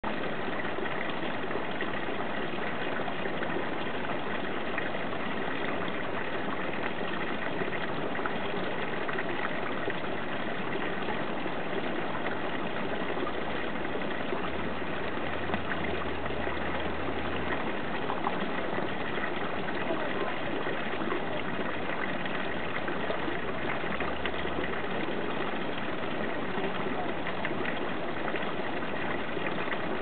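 Garden fountain: a thin stream of water pouring from a statue's spout and splashing steadily into a pond.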